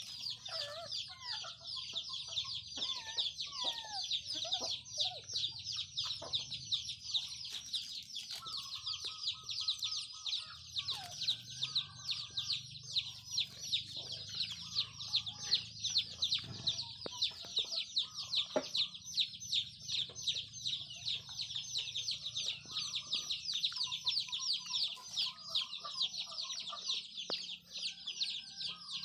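A steady, high-pitched chorus of insects chirring in a fast even pulse, with chickens clucking here and there beneath it.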